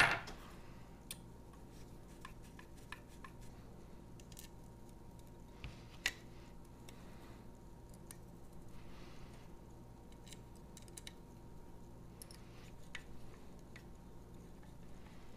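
Faint clicks and small taps of a hex screwdriver turning small screws into a carbon-fibre drone frame, as parts are handled, with a sharper click just after the start and another about six seconds in. A low steady hum lies under it.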